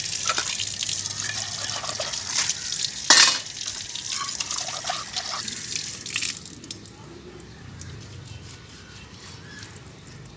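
Water running from a tap and splashing onto a concrete floor as steel dishes are rinsed under it, with one loud metal clank about three seconds in. The flow grows quieter about six seconds in.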